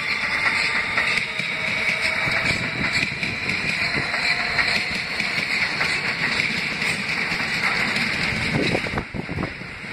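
New York City subway train of R160 cars running alongside the platform: a steady rumble and hiss of steel wheels on rail, with a faint motor whine.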